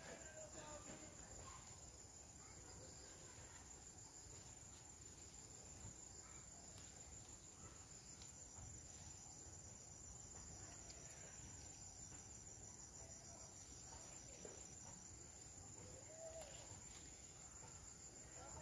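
Near silence with a faint high-pitched insect trill, a fast even pulsing that starts about eight seconds in and stops about six seconds later.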